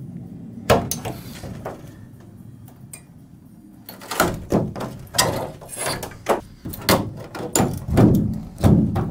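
Steel stiffener brackets, cut free at top and bottom, being pulled off a Sprinter van's sheet-metal side panel, knocking and clanking against the panel. A single sharp knock comes about a second in, then from about halfway through a quick run of knocks and clanks that is loudest near the end.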